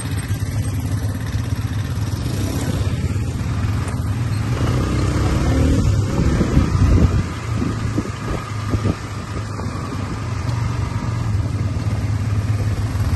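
ATV engine running as the quad bike is ridden over a dirt track, with wind noise on the microphone. The engine note rises between about four and seven seconds in, with a few knocks from the rough ground.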